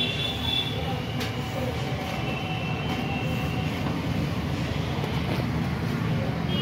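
Steady low rumble of road traffic, with faint high tones above it.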